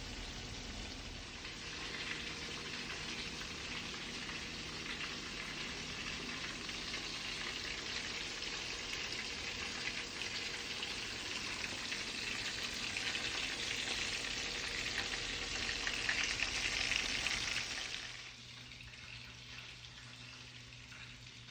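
Food frying in hot oil in a skillet: a dense sizzle that grows louder and then drops away sharply about eighteen seconds in, leaving a faint hum.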